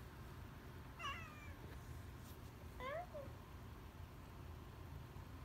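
A domestic cat meowing twice, short calls about two seconds apart: the first high and falling, the second rising then falling. The cat is meowing for attention.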